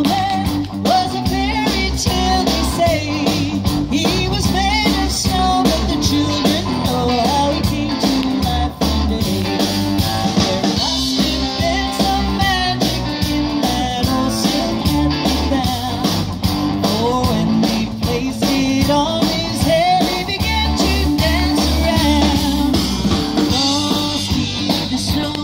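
Live rock band playing: sung vocals over electric guitar, bass guitar and a drum kit.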